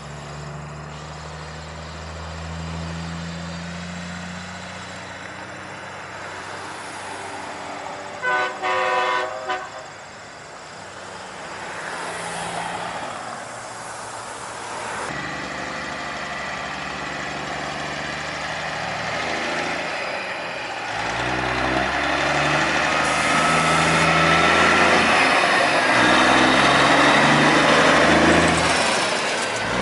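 Semi trucks' diesel engines running as they pull away, with two short blasts of a truck horn about eight and nine seconds in. From about twenty seconds in a truck's engine and tyres grow loud as it drives past close by.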